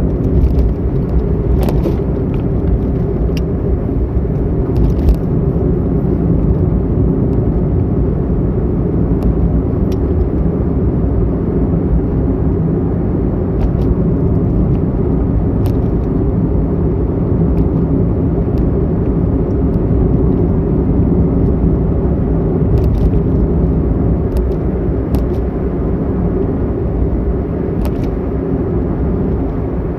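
Car driving at steady road speed, heard from inside the cabin: a continuous low rumble of road and engine noise, with a few short clicks now and then.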